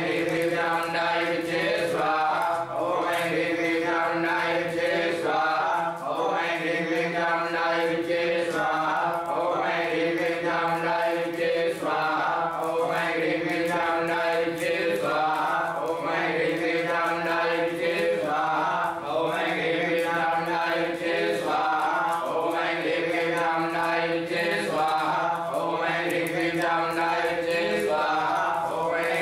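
Several men chanting Sanskrit Vedic mantras together in unison, in steady repeated phrases of about two seconds each.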